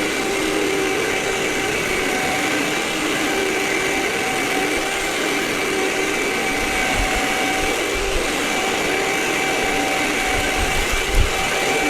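Vacuum cleaner running steadily with a constant motor whine, a few low bumps showing in the second half.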